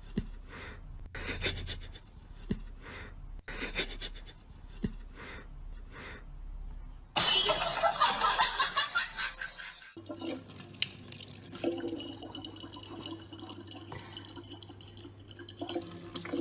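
A sudden loud, noisy burst about seven seconds in, lasting about three seconds, then a kitchen tap running in a thin steady stream with a low hum under it for the last part.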